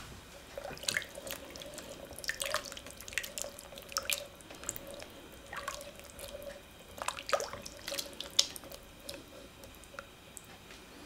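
A metal spoon stirring chickpeas, pumpkin chunks and water in an enamelled pot: irregular clinks of the spoon against the pot mixed with sloshing and dripping liquid, over a faint steady hum.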